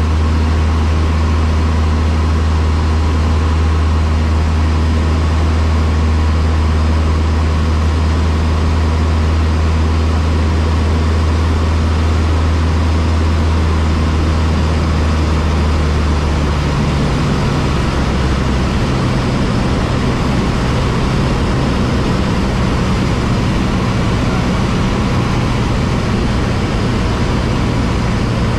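Cessna 152's four-cylinder Lycoming engine and propeller running, a loud steady drone. About two-thirds of the way through, the deep note changes to a slightly higher one.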